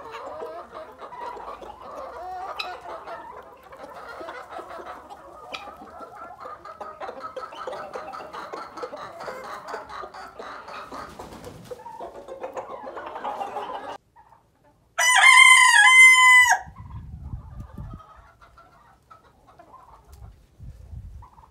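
A flock of chickens clucking and calling over one another for most of the first two-thirds, then a brown leghorn rooster crows once, loudly, for about a second and a half.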